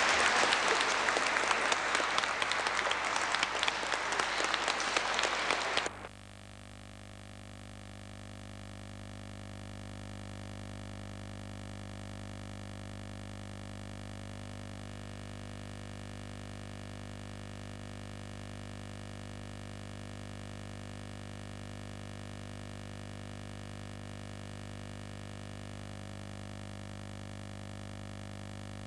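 Audience applauding, cut off suddenly about six seconds in, followed by a steady low hum with faint steady tones.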